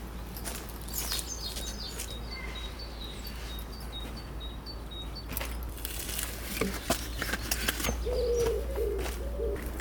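Birdsong: a short high peep repeated about twice a second, with other chirps, and a lower call near the end. Scattered clicks and knocks sound throughout over a steady low rumble.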